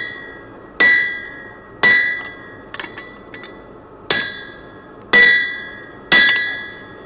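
A hammer striking ringing metal: six heavy blows roughly a second apart, each leaving a clear metallic ring that fades. A few lighter taps fill a short gap about halfway through.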